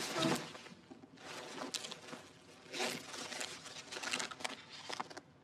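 Paper rustling and crinkling as a schoolbag is rummaged through and a test paper is pulled out and handled, in irregular bursts that stop near the end.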